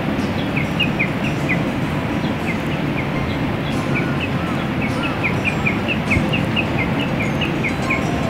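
Steady rushing noise throughout, with a small bird chirping over it in quick, short notes, several a second, and a few faint clicks.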